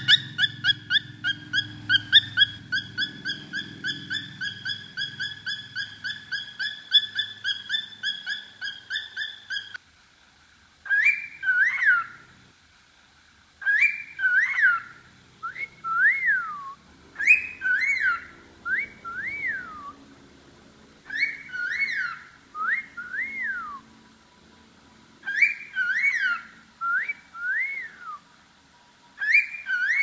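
Cockatiel calling: first a fast, even run of same-pitched calls for about ten seconds, then wolf whistles. The wolf whistles are rising-then-falling whistled glides in short groups every few seconds, traded back and forth as a whistling match with a person.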